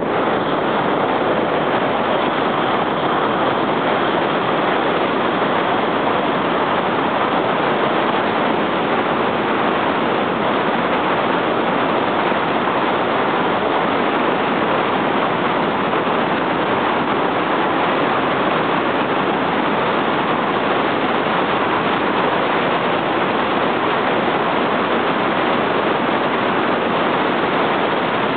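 Steady, loud rushing noise from skating downhill at speed on inline skates: wind buffeting the microphone, mixed with the wheels rolling on asphalt.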